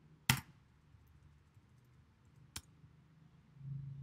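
Two sharp clicks of a computer mouse and keyboard about two seconds apart, the first much louder, as a settings field is selected and typed into.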